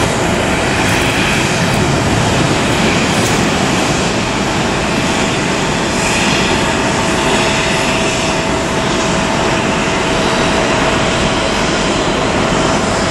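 Asiana Cargo Boeing 747-400 freighter landing: the steady, loud rush of its four jet engines, with a faint steady tone through it.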